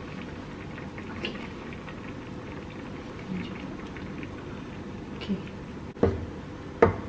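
Meat and chili paste simmering in a frying pan with a steady bubbling. Near the end a spatula knocks against the pan twice while stirring.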